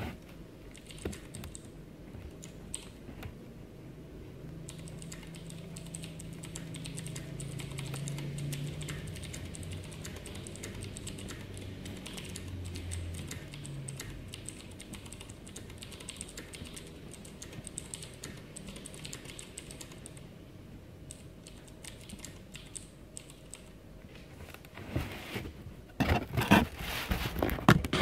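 Typing on a Ducky Shine 3 mechanical keyboard with Cherry MX White switches: a rapid, continuous run of key clicks. The strokes get louder near the end.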